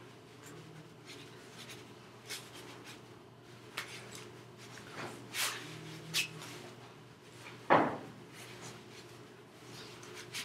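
Scattered soft taps, claps and rustles of hands and jacket sleeves moving while signing, with one louder knock a little before eight seconds. A low steady hum underneath.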